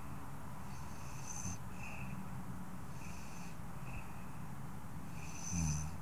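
A woman snoring softly and steadily, with one louder snore near the end.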